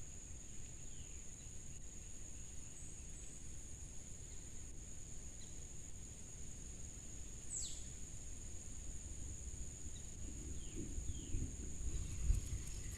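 Steady high-pitched drone of insects, with a few short falling bird chirps and one longer falling bird call about halfway through.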